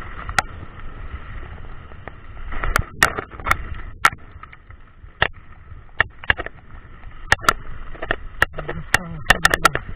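Mountain bike riding down a dirt trail: tyres rolling over the dirt under a steady hiss, with frequent sharp knocks and rattles as the bike goes over bumps.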